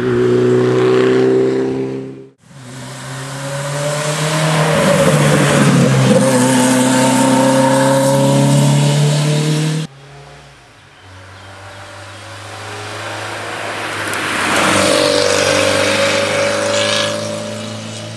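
Rally cars at full throttle on a tarmac special stage, engine revs rising and dipping through gear changes as each car approaches and passes. The sound comes as three separate passes, broken by abrupt cuts about two seconds in and about ten seconds in. The last pass starts fainter, builds to its loudest near the end, then fades.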